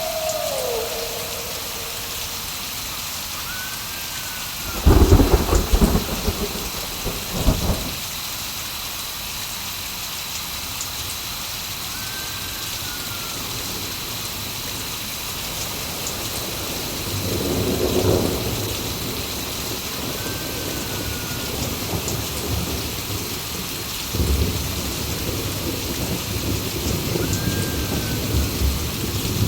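Steady rain with thunder: two loud, close cracks about five and seven and a half seconds in, a rolling rumble swelling around eighteen seconds, and rumbling again from about twenty-four seconds on. A faint, short rising-and-falling call recurs a few times above the rain.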